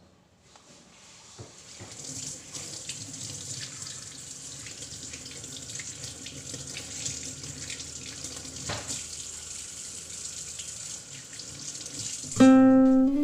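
Kitchen tap running into a sink, rising over the first couple of seconds to a steady flow, as a red onion is rinsed under the stream. Guitar music starts loudly just before the end.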